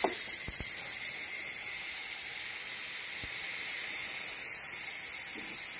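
Electric pressure cooker venting steam through its release valve in a quick release at the end of cooking: a steady high hiss that starts suddenly as the valve is opened.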